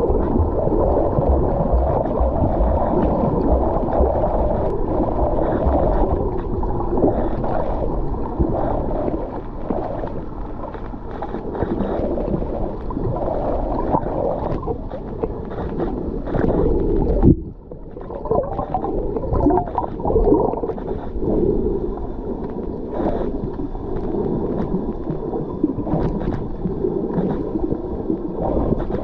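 Muffled underwater noise recorded by a submerged camera: a steady low rumble and gurgle of water, with one sharp knock and a brief drop in level about 17 seconds in.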